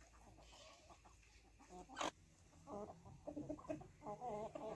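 Hens clucking in a run of short, wavering calls over the last two seconds, with a single sharp click about two seconds in.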